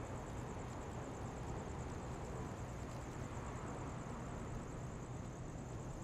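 Quiet city street at night: a steady, distant traffic hum with a low drone, and above it a constant high-pitched chirr that pulses rapidly.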